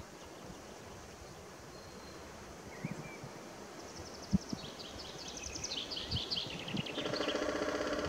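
Male White-backed Woodpecker (subspecies lilfordi) drumming on a dead tree trunk: a fast roll of beak strikes lasting about a second and a half, starting near the end. Before it, a small songbird sings a high, descending trill, and a few single low knocks sound.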